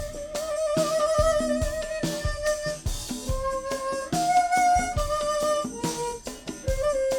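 Instrumental background music: a melody of long held notes, changing about once a second, over a regular low beat.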